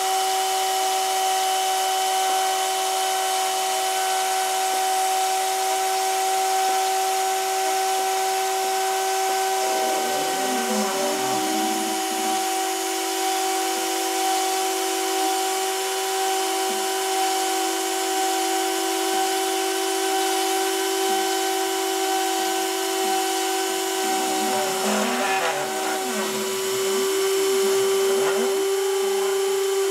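Rotary-tool spindle on a home-built OpenBuilds C-Beam CNC machine running with a steady high whine as the bit cuts cardboard. The machine's stepper motors add rising and falling whirring tones as the axes move, about ten seconds in and again from about twenty-four seconds on.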